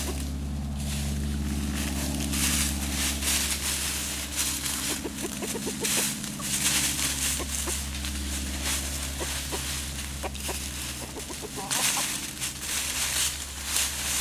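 Chickens scratching and rustling through dry leaves and pine straw as they forage, with soft clucking from the rooster and hens and a run of quick clucks about five seconds in.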